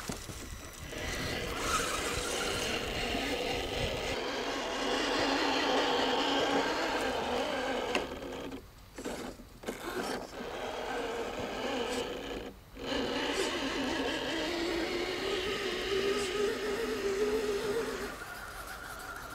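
Electric motor and gearbox of a radio-controlled scale off-road truck whining under load as it crawls up a steep dirt slope. The sound drops out briefly a few times as the throttle eases, and the whine rises in pitch near the end.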